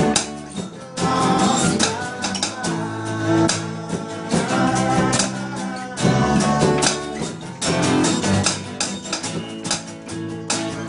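Acoustic rock band playing live, led by an acoustic guitar strummed in a steady rhythm.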